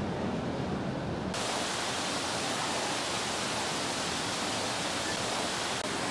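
Steady rushing noise. A low rumble under it stops abruptly about a second in, leaving an even, brighter hiss.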